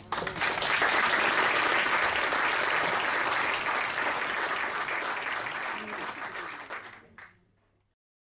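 Theatre audience applauding at the end of a song: dense, steady clapping that begins abruptly and dies away about seven seconds in.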